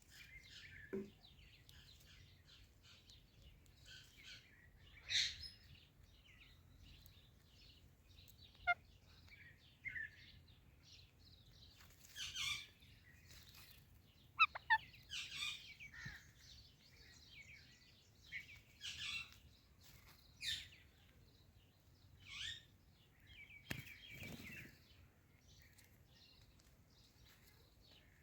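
Indian ringneck parakeet giving short, scattered chirps and calls, some single, some in quick clusters, with gaps of a second or more between them.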